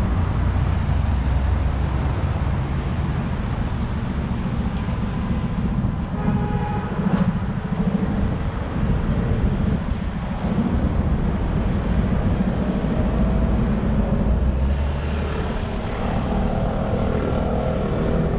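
City road traffic: a steady low rumble of cars passing on a wide multi-lane boulevard.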